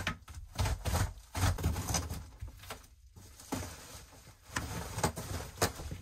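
Carpet being ripped up off a plywood floor by hand: irregular tearing, scraping and rustling, with dull thumps as it is pulled back.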